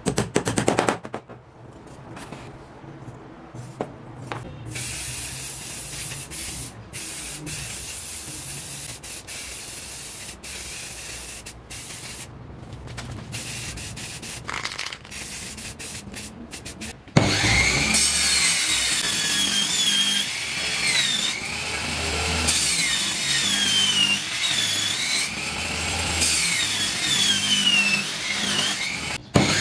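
A hammer tapping rapidly on a nail in a small wooden block, then an aerosol spray-paint can hissing in bursts with short breaks, then a table saw cutting plywood, much louder, its whine wavering up and down as the blade meets the wood.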